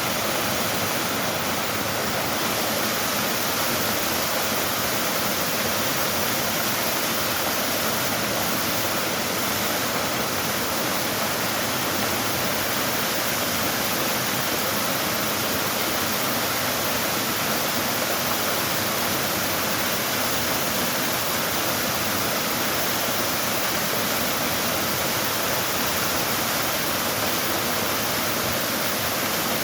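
Mountain valley stream rushing steadily over rocks, a constant full hiss of running water.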